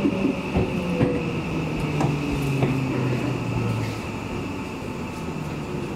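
Electric commuter train running on the Seibu line, its motor whine gliding down in pitch as it slows, with a few clicks from the rails over steady running noise. The sound eases off in the last couple of seconds.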